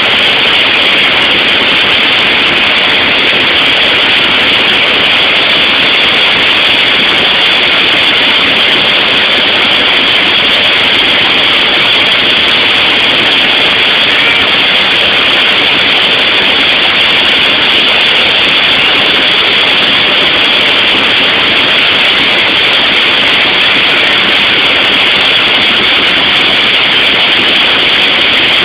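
Steady, loud engine drone and rushing air inside a small airplane's cabin in flight.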